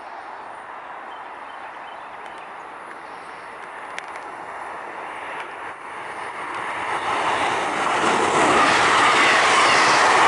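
MARC commuter train of bilevel coaches, cab car leading, approaching and passing close by: its wheels running on the rails grow steadily louder and are loudest from about eight seconds in as the coaches go by.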